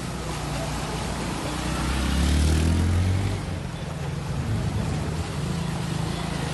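Motorcycles riding through shallow floodwater: a small engine running under a wash of splashing water, loudest about two seconds in.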